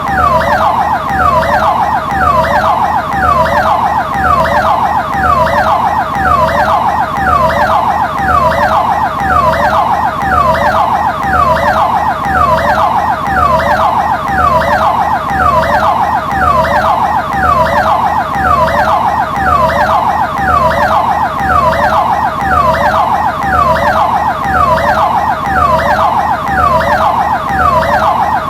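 Ambulance siren sounding continuously. Each note sweeps quickly down in pitch, repeating evenly a little over once a second.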